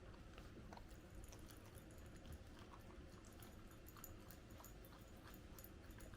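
Near silence with faint, scattered small clicks.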